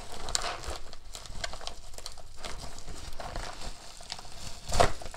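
Plastic bubble mailer rustling and crinkling as it is handled and pulled open along a cut slit, with a louder crackle near the end.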